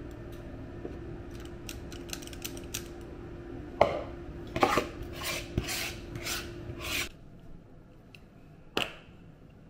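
A spoon scraping banana bread batter out of a mixing bowl and into a muffin tin: a run of scrapes and clinks in the middle, over a steady low hum that stops about seven seconds in. A single sharp click near the end.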